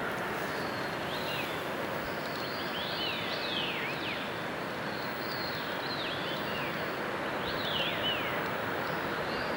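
Steady rush of a waterfall, with a bird repeatedly giving short calls that sweep down in pitch over it.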